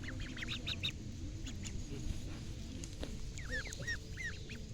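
Birds calling in quick runs of short high chirps, one run at the start and another about three and a half seconds in, over a low steady rumble.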